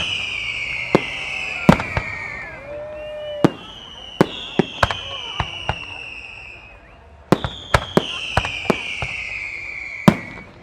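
Aerial fireworks display: a rapid series of sharp bangs from bursting shells, overlaid by three long whistles, each about two seconds, falling slightly in pitch.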